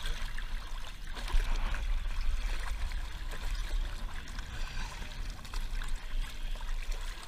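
Sea water rushing and splashing along the side of a slowly moving boat and around a fish held in the water at the gunwale, with a steady low rumble underneath.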